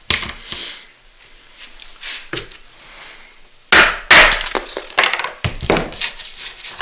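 Hammer knocks and tool clinks on a wooden rodel's frame and bolts: a few light clicks, then a loud strike a little past halfway, followed by two more knocks.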